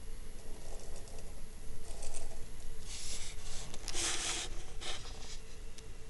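Snowstorm wind buffeting the microphone with a steady low rumble, broken by short rustling gusts of hiss, the strongest about four seconds in.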